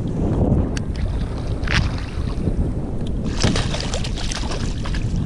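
Wind buffeting the microphone in a steady low rumble, broken by scattered light knocks and clicks, a few of them close together a little past three seconds in.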